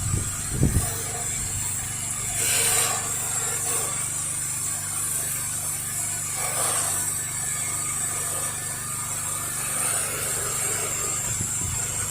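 Pressure-washing rig's motor running steadily with a high spray hiss over it, and a brief wider rush of noise about two and a half seconds in.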